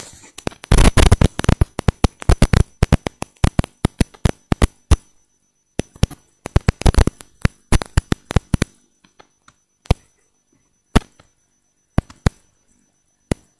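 Phone being handled right at its microphone: a rapid flurry of loud clicks and knocks about one second in and again about six seconds in, then a few single clicks.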